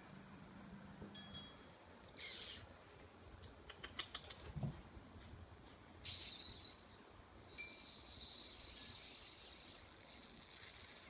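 Siamese kittens hissing in short bursts, the longest lasting about three seconds, with a quick run of light clicks and a soft thump about four seconds in.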